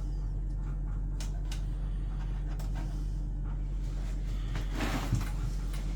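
Steady low electrical or machinery hum, with scattered light clicks and knocks of parts and wires being handled, and a short rustle about five seconds in.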